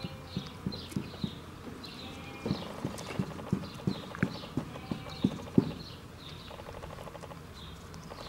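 Rhythmic knocking, about three knocks a second, growing louder and stopping a little past halfway, with small birds chirping throughout.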